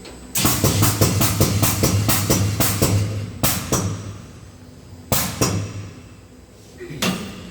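Sealant drum pump on an insulating-glass machine raising its plate: a rapid mechanical clatter of about five knocks a second over a low hum for a few seconds, then a few single loud clunks.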